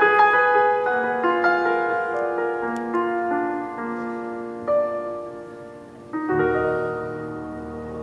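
Piano played slowly and softly, single notes and chords struck one after another and left to ring. About six seconds in, a new chord with a low bass comes in and is held.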